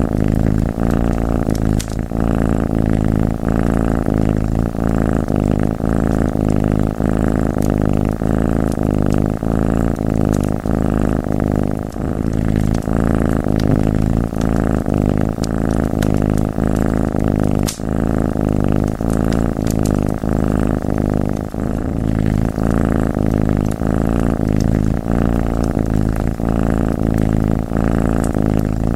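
Domestic cat purring close and steady in a continuous pulsing rumble, with faint scattered fire crackles on top.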